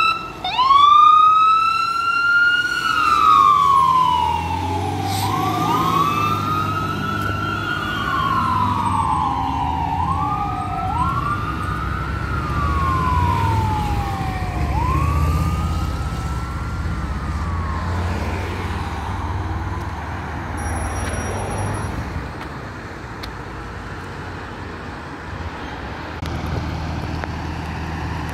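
Fire engine's siren wailing in long sweeps, each rising quickly and falling slowly, about five seconds apart, over the truck's engine rumble as it drives away. The siren fades out about two-thirds of the way through, leaving low traffic noise.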